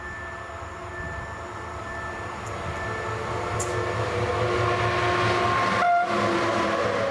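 Train approaching and passing close, growing steadily louder: a rumble and hiss with several steady tones held over it. The sound drops out for an instant about six seconds in.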